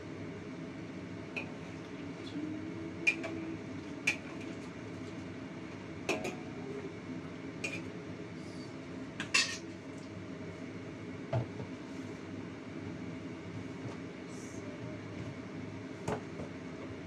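Metal spatula knocking and scraping against a wok as pork trotter and chicken pieces are stirred: scattered sharp clinks every second or two, over a steady low hum.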